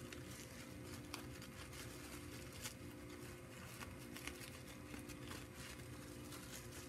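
Gray tissue paper rustling and crinkling faintly as it is unwrapped, with scattered small crackles.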